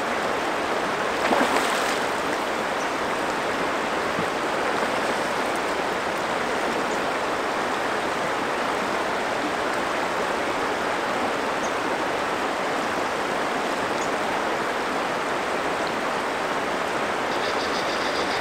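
Salmon River current flowing over a shallow riffle in a steady rush of water, with one short louder burst about a second and a half in.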